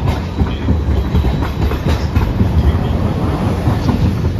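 Hiroshima Electric Railway Green Mover low-floor tram passing close by, running with a low rumble and its wheels clattering unevenly on the rails.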